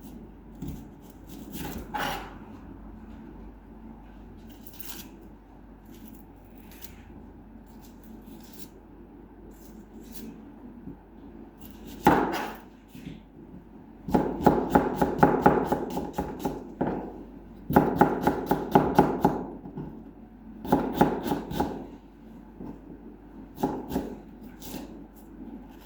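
Kitchen knife chopping vegetables on a cutting board, fine-chopping. A few single strokes come first, then several quick runs of rapid chopping in the second half.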